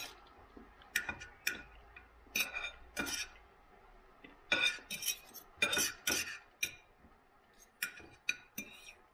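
Knife and fork clinking and scraping on a plate while cutting food, in irregular clusters of short sharp strokes.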